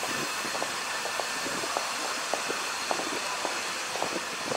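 Footsteps walking on a paved forecourt, a few steps a second, over a steady outdoor hiss of distant traffic and air.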